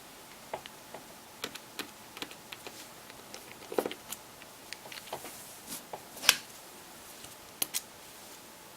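Scattered small clicks and taps of a T6 Torx screwdriver and a smartphone being handled while the rear housing screws are taken out. There is a little cluster of taps near four seconds in, and the sharpest click comes about six seconds in.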